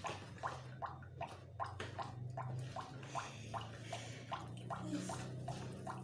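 Hands mixing and kneading wet pizza dough in a plastic bowl, a rhythmic squelching about three times a second, over a low steady hum.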